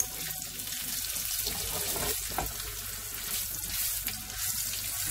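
Sausages frying in shallow oil in a nonstick pan: a steady sizzling hiss with small crackles.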